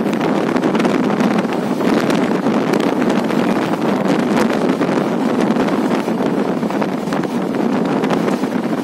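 Steady wind noise on the microphone held out of a moving passenger train, over the running noise of the train on the track.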